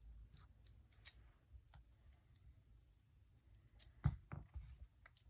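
Faint, scattered clicks and light taps of a precision screwdriver and a tiny screw on an opened iPhone's internals, the loudest a little after four seconds with a soft knock under it.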